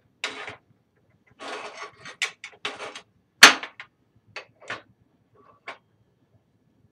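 Steel plates and metal tools handled on a metal workbench: a few short scrapes, then a sharp clank about three and a half seconds in, followed by lighter knocks.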